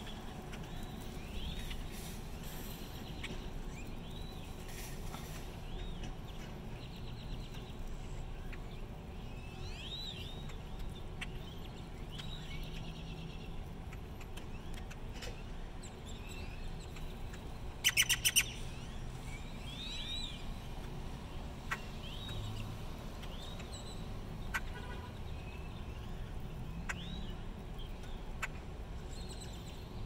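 A flock of great-tailed grackles calling: repeated rising-and-falling whistled notes every second or two. About eighteen seconds in there is a short, loud rattle of rapid clicks, over a steady low rumble.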